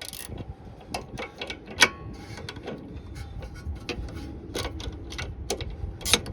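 Hand tools working the nuts on a new sway bar link: scattered metallic clicks and taps, with one sharper knock about two seconds in.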